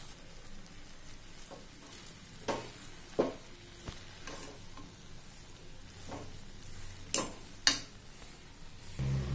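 Steel spoon stirring chopped okra and a coarse spice powder around a pan over a light sizzle, with about four sharp scrapes of metal against the pan.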